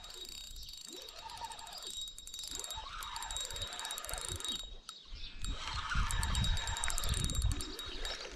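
Fishing reel being wound in, a fast fine ticking, with low thumps of wind or handling on the microphone about six to seven and a half seconds in.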